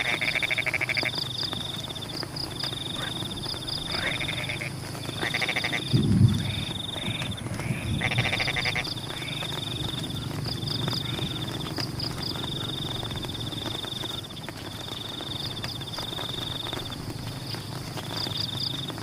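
Frogs calling in a rice field: several loud, pulsed, bleating calls stand out over a steady high-pitched chorus of trilling calls. A short low rumble comes about six seconds in.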